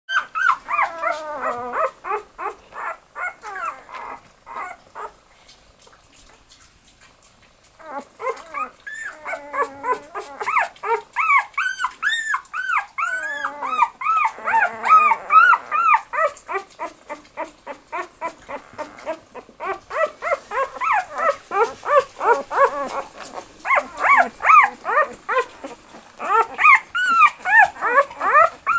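Newborn Australian Shepherd puppies squeaking and whimpering in many short, high-pitched cries, often overlapping. The cries thin out into a lull of about three seconds a few seconds in, then pick up again.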